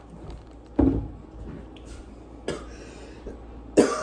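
Three short muffled vocal sounds from a person holding a mouthful of water, about a second in, about two and a half seconds in, and loudest near the end.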